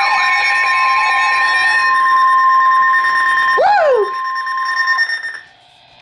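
NOAA Weather Radio warning alarm tone: a steady high-pitched tone near 1 kHz, held with a fainter higher tone, cutting off about five seconds in. This is the signal that a warning message follows. A warbling siren sweep tails off at the very start, and a short falling whoop comes about three and a half seconds in.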